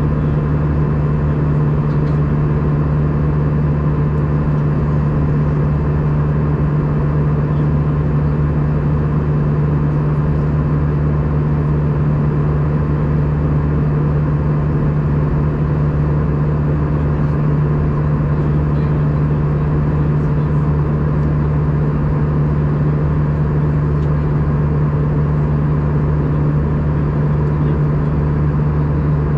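Steady in-flight cabin drone of an Airbus A320, heard from a window seat: a constant low engine hum under a wash of airflow noise, with no change in pitch or level.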